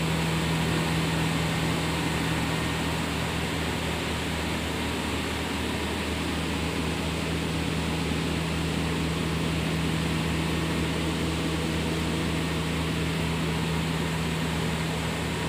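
Fiber grinding machine for synthetic silicone pillow filling running steadily: a constant low machine hum with a hiss over it, as the fiber is fed in on its conveyor belt.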